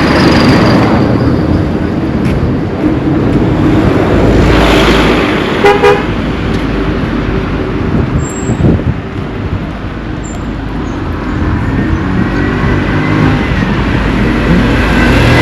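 Road traffic passing close by with a steady rumble, and a vehicle horn tooting twice in quick short blasts about six seconds in.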